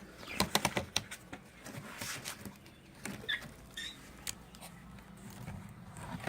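Clicks and knocks of a birds' nest box being opened and handled, thickest in the first second and again around two seconds in, with two short high bird chirps a little over three seconds in.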